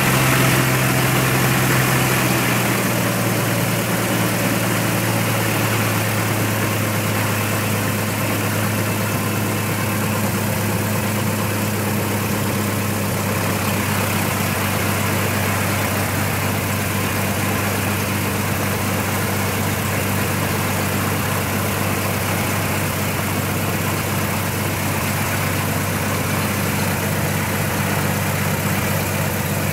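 Cessna 182's piston engine and propeller running steadily at low power, heard inside the cabin. The pitch drops slightly in the first two seconds as the engine settles to a lower speed, then holds even.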